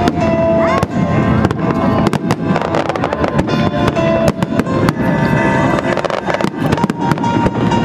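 Fireworks bursting and crackling in quick, irregular succession over music with steady tones.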